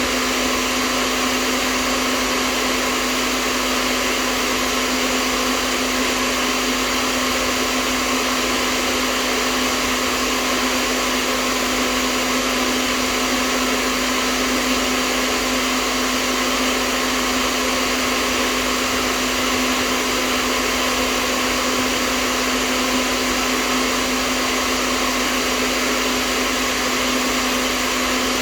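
Hair dryer running steadily: an even airy rush with a constant motor hum, unchanging throughout.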